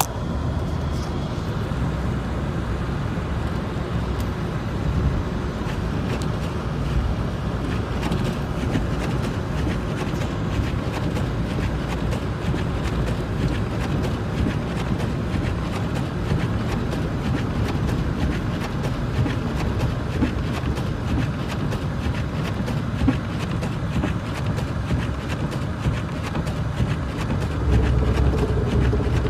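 Car driving on a snowy, slushy road: a steady low rumble of engine and tyres with many small ticks throughout, swelling a little near the end.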